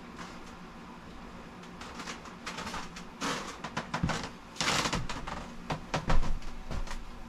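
Rummaging and handling noises: an irregular run of rustles, clicks and clattering knocks of objects being moved about, starting about two seconds in and loudest around five and six seconds in, over a steady low hum.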